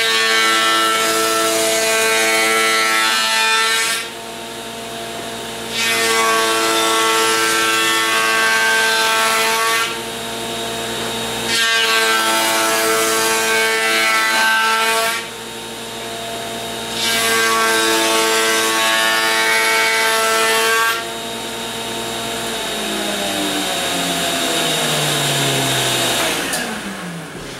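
A router in a router table running steadily while a walnut board is fed past the bit four times, each pass a louder cutting noise of a few seconds. Near the end the router is switched off and its whine falls in pitch as it spins down.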